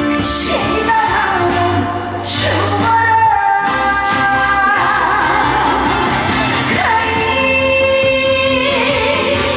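A woman singing a Korean trot song live over band accompaniment, with long held notes.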